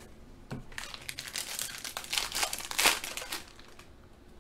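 Foil wrapper of a Panini Contenders Draft football card pack crinkling and tearing as it is ripped open by hand, loudest near the end of about three seconds of rustling.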